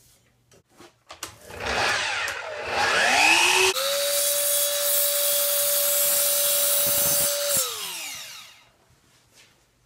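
Festool Kapex KS 120 miter saw starting up: the motor spins up with a rising whine, runs at a steady high whine for about four seconds, then winds down with falling pitch after the trigger is released.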